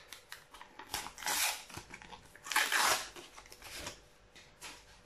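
A Panini sticker packet's wrapper being torn open by hand: two loud crackly rips, about one and two and a half seconds in, with smaller crinkles around them.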